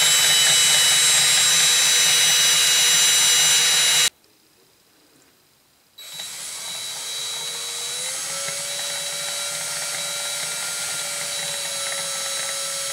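Electric drill motor whining steadily as it turns the pinion of a cut-away three-jaw scroll chuck, driving the scroll that moves the jaws. The whine stops for about two seconds about four seconds in, then starts again a little quieter, rising slightly in pitch before it holds steady.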